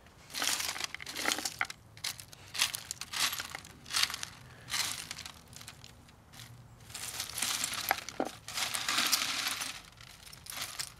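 A hand raking and picking through dry dirt clods and debris on a wire-mesh sifting screen: irregular scraping and crunching, with a few sharp clicks of hard bits knocking together.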